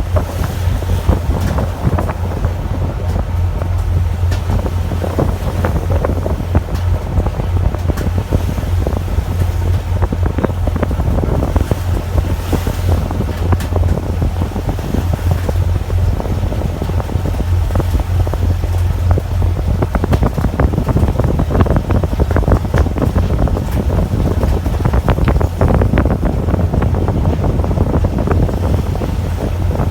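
Wind buffeting the microphone over the steady low rumble of a fishing boat's engine, with scattered sharp clicks and knocks.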